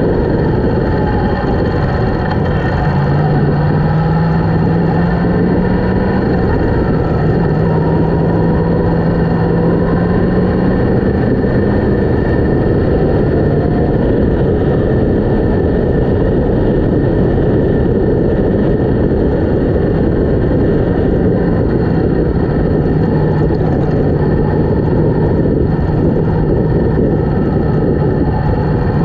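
Yamaha MT-10's inline-four engine running at road speed under a loud, steady rush of wind on the microphone. The engine note rises gently twice in the first half as the bike pulls, then holds steady.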